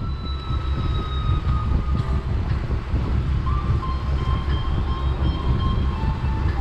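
Motorboat under way: a low, uneven rumble of the engine and wind buffeting the microphone, with a faint thin whine that drifts slightly in pitch.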